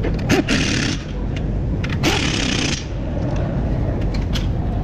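Pneumatic impact wrench driven in two short bursts on a front brake caliper bolt, the second burst a little under a second long, over a steady low rumble.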